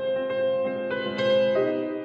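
Background music: slow, gentle piano-like notes, a new note or chord every half second or so.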